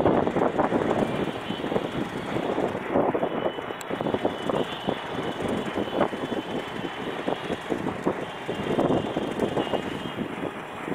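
Passenger train crawling slowly over the tracks: a steady rumble with irregular clatter of wheels over rail joints and points.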